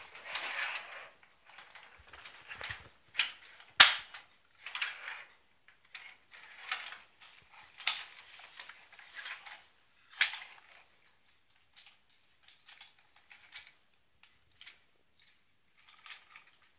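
Hard plastic parts of a Transformers Sky Lynx toy being handled and snapped together: an irregular run of clicks and short rattles, with sharp snaps about 4, 8 and 10 seconds in.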